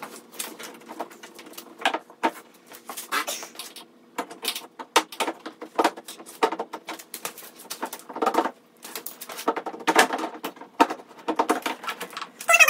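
Irregular small clicks, taps and plastic knocks as bolts and the plastic headlight housing of a 2017 Toyota Tundra are worked loose by hand and tool, over a faint steady hum.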